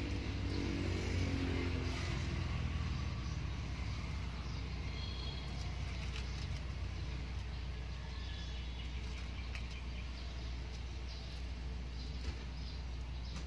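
A motor vehicle's engine hum that fades away in the first couple of seconds, over a steady low rumble with a few faint ticks.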